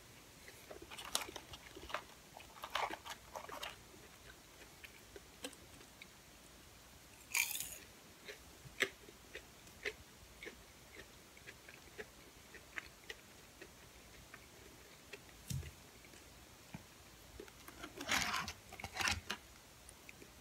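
Close-miked mouth sounds of a person eating fried fast food: wet mouth clicks and crunchy chewing. There are short louder bursts about seven seconds in and again near the end.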